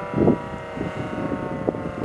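Federal Signal Thunderbolt 1000T tornado siren sounding a steady, slightly falling tone made of several notes, during a tornado warning drill. Wind buffets the microphone, loudest about a quarter-second in.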